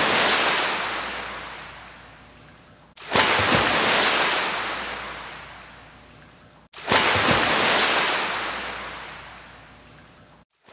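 Ocean waves breaking on a shore, a surf sound effect repeated three times: each wave surges in suddenly and washes away over about three seconds, with a short moment of dead silence between the copies.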